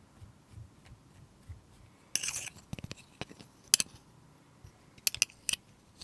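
Close-up handling sounds: a few soft taps, a brief rustling scrape about two seconds in, then scattered sharp clicks with a quick cluster of them near the end.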